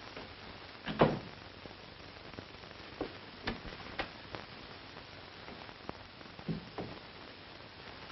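Scattered light knocks and taps over the steady hiss of an old film soundtrack: one sharper knock about a second in, then a run of taps about half a second apart, and a few more near the end.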